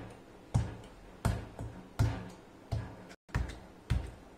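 Steel pestle pounding stiff dough in a stainless steel bowl: a steady run of dull thuds, about one every 0.7 seconds, each with a short metallic ring. The dough is being beaten for several minutes to make it soft and pale.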